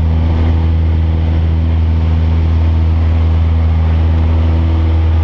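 Cessna 172's piston engine and propeller running at steady high power on takeoff and initial climb, heard as a loud, even low drone inside the cabin.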